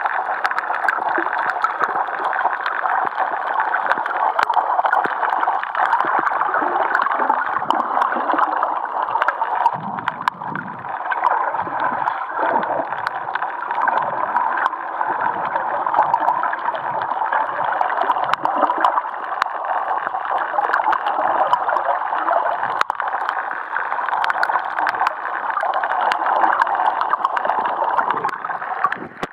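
Muffled underwater noise picked up through a camera's waterproof housing: a steady hiss with scattered crackling clicks, and some low gurgling rumbles about ten to fourteen seconds in.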